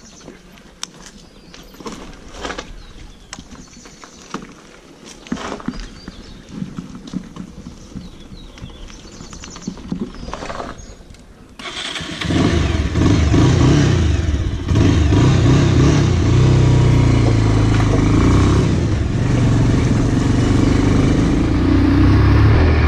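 Scattered clicks and knocks, then a little past halfway a Bajaj Pulsar 180 motorcycle's single-cylinder engine starts and runs loud as the bike pulls away.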